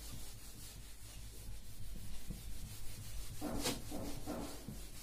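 Whiteboard eraser wiping marker writing off a whiteboard in a run of rubbing strokes, louder about three and a half seconds in.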